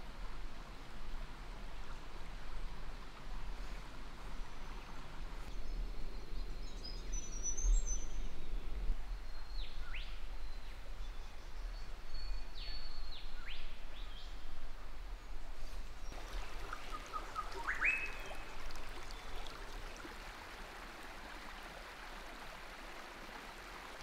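Steady rush of a small rocky forest creek with birds calling over it. High chirps come first, then a few quick whistles sweeping downward about ten to fourteen seconds in, and a rising whistle around eighteen seconds. The water sound eases a little after twenty seconds.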